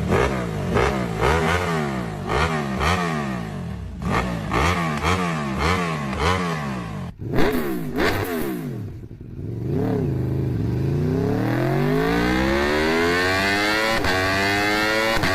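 Several different V-type engines revved one after another. The first are blipped in quick, repeated rises and falls. After a cut about seven seconds in, a later engine revs in one long, steady climb in pitch.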